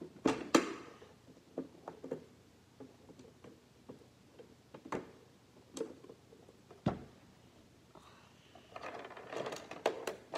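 Small plastic toy pieces being rummaged through and handled: scattered sharp clicks and knocks, with a busier stretch of handling near the end.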